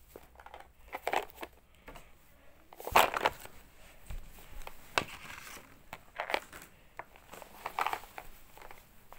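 Handling noise from a phone camera being carried and swung about: irregular rustles of fabric against the microphone and light knocks, with one louder knock about three seconds in.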